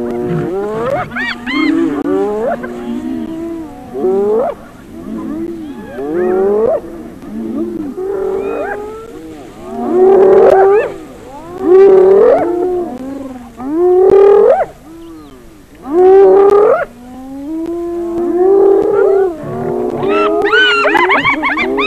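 A group of spotted hyenas crying out excitedly together, many overlapping calls that rise and fall in pitch. The loudest cries come about ten, twelve, fourteen and sixteen seconds in, as the hyenas press lionesses at a kill.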